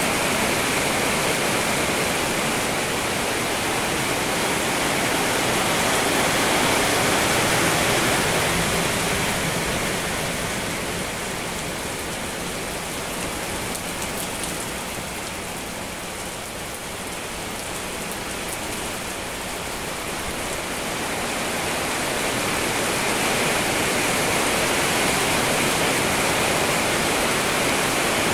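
Steady rain falling, an even hiss that eases for a few seconds midway and then builds again.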